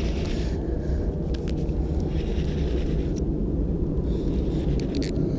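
A steady low outdoor rumble with no clear pitch, with a few faint clicks.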